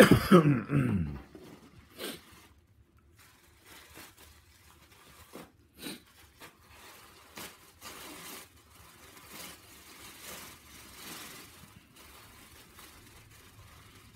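Plastic wrapping and tissue paper rustling and crinkling in irregular, fairly faint bursts as small items are unwrapped by hand. A brief, loud sound falling in pitch comes right at the start.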